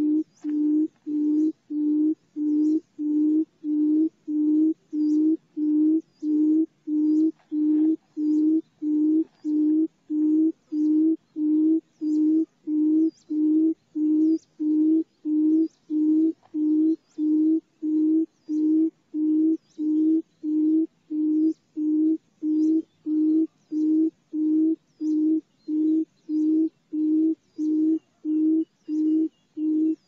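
Barred buttonquail giving its deep booming call: one low hooting note repeated evenly, about one and a half notes a second, as used on decoy recordings to lure the birds.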